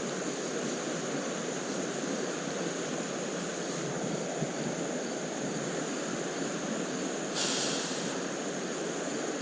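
Creek water rushing steadily over rocks, with a thin steady high tone above it. A short, louder hiss comes about three-quarters of the way through.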